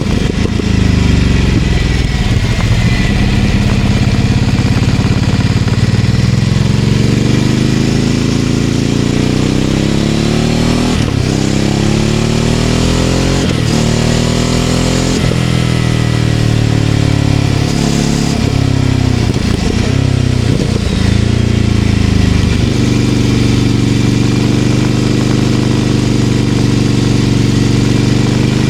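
Ducati Scrambler Icon Dark 800's air-cooled L-twin engine through a Leovince LV-10 exhaust, under way. The revs climb through three quick upshifts around the middle, then fall away as the bike slows. The engine settles to a steady cruise for the last few seconds.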